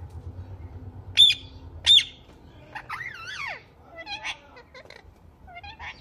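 Indian ringneck parakeets calling: two loud, sharp shrieks about one and two seconds in, followed by softer warbling and chattering calls that glide up and down in pitch.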